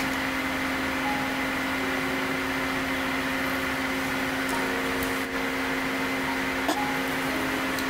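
Steady room noise: a constant low electrical hum over an even hiss, with no distinct handling sounds standing out.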